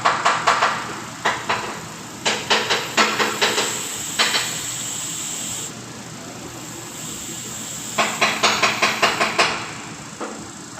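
Bursts of sharp metallic clicking, several clicks a second, from tools working on an automatic transmission during teardown, with a steady hiss of compressed air between the bursts.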